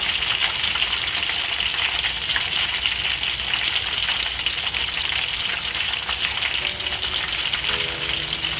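Battered tempe slices (tempe mendoan) deep-frying in hot oil in a wok: a steady crackling sizzle with many small pops, the turned slices frying until the batter sets dry and crisp.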